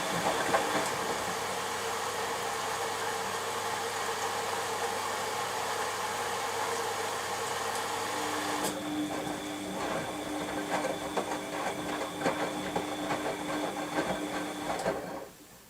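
Washing machine running with a steady motor hum and hiss; about two-thirds of the way in the hiss drops away and a steady tone with light rattling takes over, then the machine stops abruptly near the end.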